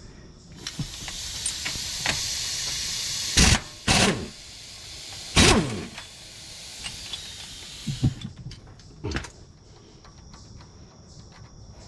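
Compressed-air hiss from a pneumatic tool, broken by three short, loud bursts about 3½, 4 and 5½ seconds in, the last one winding down in pitch. After about 8 seconds the hiss stops and a few light clicks follow.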